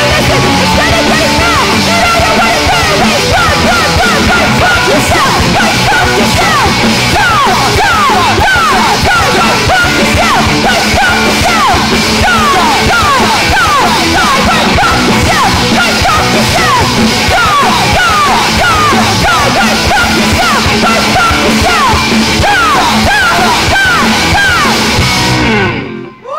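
A punk rock band playing live, loud: electric guitars, bass and drums with yelled singing. The song stops abruptly near the end.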